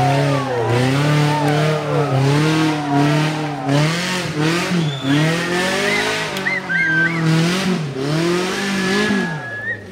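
Modified four-wheel-drive jeep's engine revving up and dropping back again and again under load as it climbs a steep mud slope. High whistle-like tones sound over it about halfway through and again near the end.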